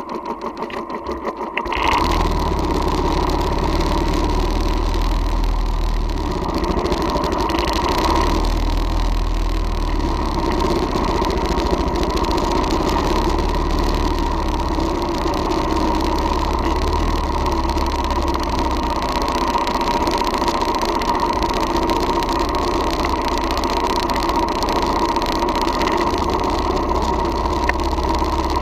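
Royal Enfield Thunderbird's single-cylinder engine heard close up from a camera mounted on the motorcycle, pulsing evenly at low revs for the first second or two, then stepping up to a louder, steady run with a heavy low rumble as the bike rides along over sand.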